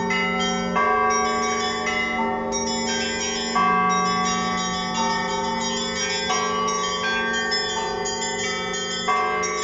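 Russian Orthodox church bells rung in a zvon: small and middle bells struck in a quick, overlapping pattern over the sustained hum of the deeper bells. Heavier strokes come about a second in, near four seconds in, and near the end.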